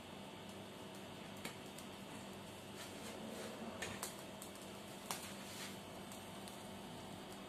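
Faint steady hiss of a gas burner heating an empty pan, with a low hum and a few faint, scattered clicks.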